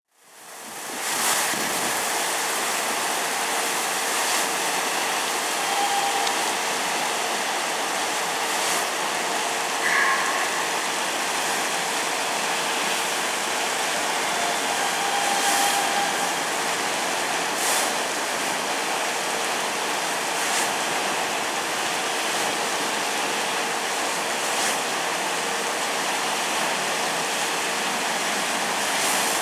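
Automatic train-washing plant spraying water onto an electric train's roof and sides as the train passes through, a steady rushing spray with a constant hum underneath.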